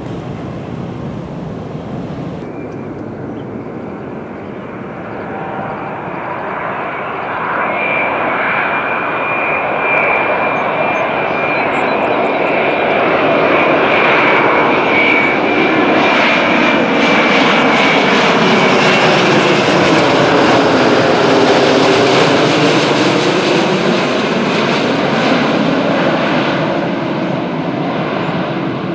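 Twin-engine jet airliner flying low overhead with its landing gear down. The engine noise builds as it approaches, with a high whine over the rumble, then its pitch drops as it passes and it rumbles away. A more distant jet is heard climbing away in the first couple of seconds.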